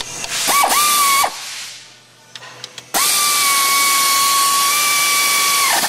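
Pneumatic air ratchet on an extension running a bolt. It whines steadily over the hiss of exhaust air in a short burst of about a second, then in a longer run of nearly three seconds that winds down in pitch as it stops.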